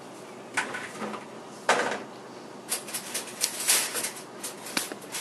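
Metal kitchen utensils clinking and rattling as a drawer is searched for a spoon. A few separate clicks come first, then a short sliding scrape about two seconds in, then a quick run of clinks and rattles.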